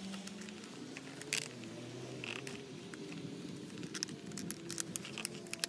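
Ratchet buckle on a Snowfeet ski-skate binding being cranked to tighten the strap over a boot: scattered sharp clicks, becoming a rapid run of ratcheting clicks in the last couple of seconds. A low wavering hum sits underneath.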